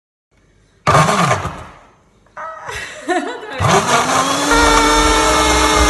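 Philips Cucina countertop blender blending a whole tomato: a short burst about a second in that dies away, then the motor switched on past the middle, rising in pitch and settling into a steady loud whine as the blades chop the tomato to pulp.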